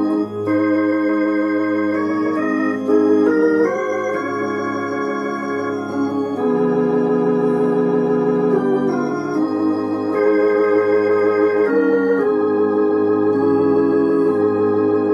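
Gospel hymn played on a Roland HP 704 digital piano set to an organ voice: full chords held without fading, changing every second or two, with a wavering vibrato on the notes.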